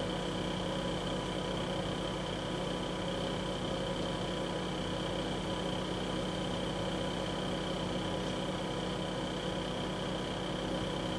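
Steady background hum and hiss with a faint constant high whine, unchanging throughout, with no distinct sound events.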